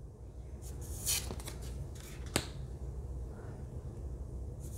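Oracle cards being handled as one is swapped for the next: a short rustle of card stock sliding about a second in, a few light ticks, and one sharp click a little after two seconds, over a steady low hum.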